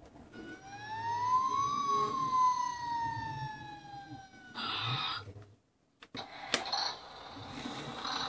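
Battery toy fire engine playing its electronic siren sound through a small speaker: one wail that rises for about a second and a half, then falls slowly. A short noisy burst follows. After a brief pause come a click and another electronic sound effect with a steady high tone.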